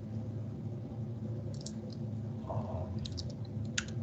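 A few scattered computer keyboard keystrokes, small sharp clicks about a second and a half in and a quick cluster near the end, over a low steady hum.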